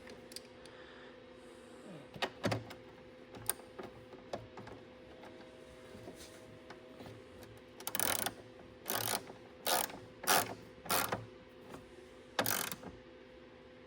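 10 mm ratchet clicking as it tightens a car battery terminal clamp: a few scattered clicks, then a run of about six short ratcheting strokes starting about eight seconds in.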